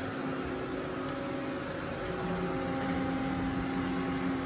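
Steady mechanical hum of running machine-shop equipment, a drone made of several steady tones, with a lower tone joining about two seconds in.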